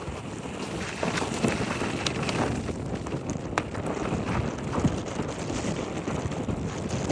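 Nissan Juke on the move, with steady road and wind noise and a scattering of sharp, irregular clicks and knocks. The owner puts such knocks down to the brake calipers, heard after the car has warmed up, especially when braking into turns.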